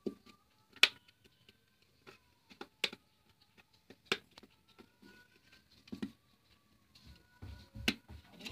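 Sharp plastic clicks and small scrapes, irregular and about one every second or so, as a thin pry tool works around the edge of a Redmi 4A's back cover, unsnapping its plastic clips from the frame.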